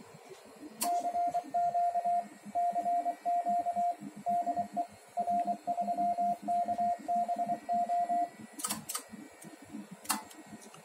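Morse code CW sidetone from a Yaesu HF transceiver: a single steady mid-pitched tone keyed on and off in dots and dashes for about seven seconds, while the transceiver drives the linear amplifier at high power. Sharp clicks sound as the keying starts, twice just after it stops, and once more about ten seconds in.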